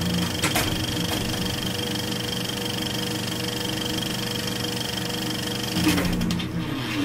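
Electronic buzzing drone under an animated logo intro: several steady held tones with a fast flutter. The pitch slides briefly at the start and again near the end, with a few short clicks.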